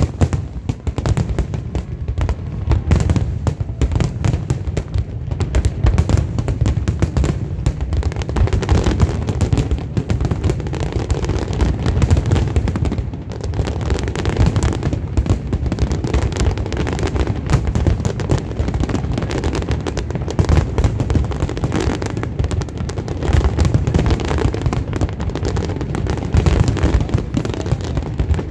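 Large aerial fireworks display in full barrage: shells bursting many times a second with no pause, a continuous rumble of deep bursts and sharper reports.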